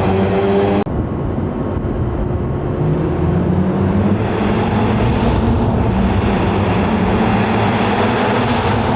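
Honda Civic Type R FK8's turbocharged four-cylinder, breathing through an Armytrix exhaust, running as the car drives, with a lot of rushing road and wind noise. Its note climbs slowly a few seconds in and then holds steady. There is an abrupt cut just under a second in.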